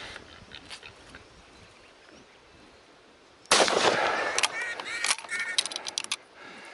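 A rifle shot about halfway through, sudden and loud, followed by a couple of seconds of sharp clicks and short wavering squeals.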